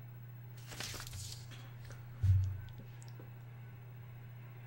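A sheet of printed paper rustling briefly as it is handled, then a single dull thump a little over two seconds in, with a few faint clicks after it, over a steady low hum.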